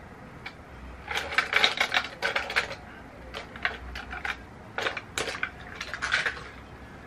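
Makeup items clicking and clattering together as they are rummaged through by hand while searching for an eyeliner: a run of quick, irregular taps and rattles.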